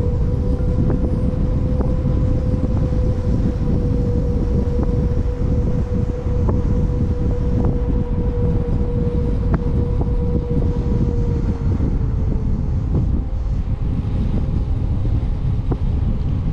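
Wind buffeting the microphone while riding a bicycle at speed, a steady rumble. Over it sits a steady whine that fades out about three quarters of the way through, with a few faint ticks.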